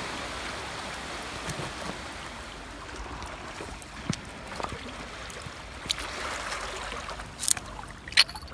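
Shallow seawater lapping and trickling over pebbles in a shoreline rock pool, a steady wash with a few light clicks and knocks, the sharpest near the end.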